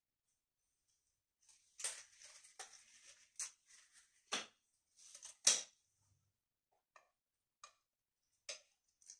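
Hands handling waxing supplies at a trolley: a run of short clicks and rustles starting a couple of seconds in, then a few single clicks near the end.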